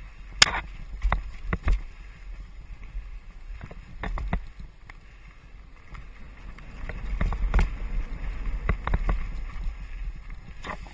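Mountain bike riding fast down a dirt singletrack: a steady low rumble from the ride over the ground, broken by sharp clanks and rattles from the bike over bumps, several in the first two seconds and more past the middle, where the rumble grows louder for a couple of seconds.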